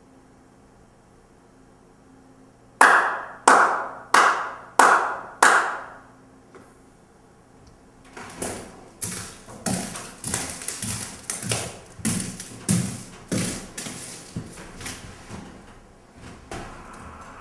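Five loud, sharp percussive strikes evenly spaced about two-thirds of a second apart, each dying away quickly. After a short pause comes a longer, irregular run of quicker, crisper strikes.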